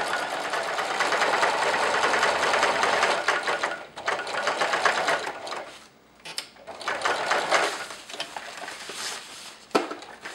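Electric sewing machine stitching a zigzag seam through fabric, the needle running fast in several runs with short stops between them, the longest stop about six seconds in. A single sharp click comes near the end.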